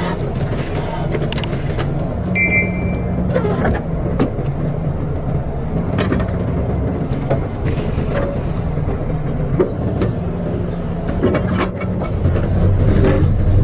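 Excavator's diesel engine running steadily, with scattered clanks and knocks from the machine at work.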